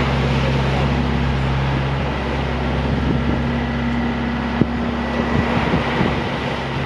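Lifeboat launch tractor's diesel engine running steadily while hauling the lifeboat trailer on the slipway, with a few knocks in the second half, the sharpest about two-thirds through. Wind buffets the microphone throughout.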